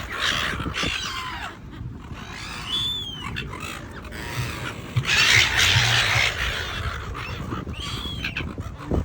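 Seagulls squawking and crying, harsh calls coming one after another, loudest and most crowded about five seconds in.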